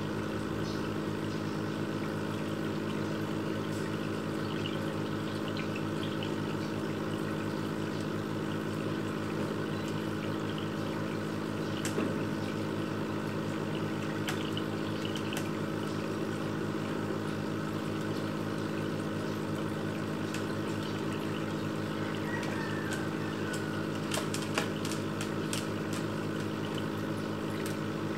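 Aquarium filter pump humming steadily, with the water it moves bubbling and trickling. A couple of faint clicks, one about midway and one near the end.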